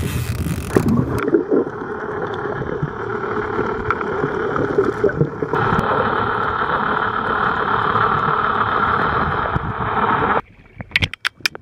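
Muffled, steady rush and gurgle of water heard through an underwater camera as a hooked barracuda is drawn in near the surface. It cuts off abruptly near the end, followed by a few sharp clicks.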